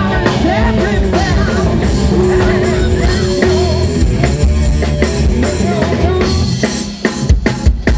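Live classic rock band playing: a male lead singer over electric guitar, bass guitar and drum kit, with a string of sharp drum hits near the end.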